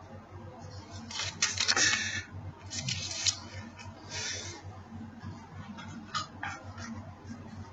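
Handling noises: a few short rustles in the first half, then scattered light clicks and taps.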